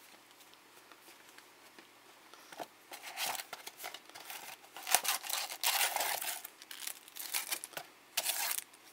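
Cardboard box flaps and foil-wrapped trading card packs rustling and crinkling as the packs are pulled out of a small retail box, in irregular bursts starting about two and a half seconds in.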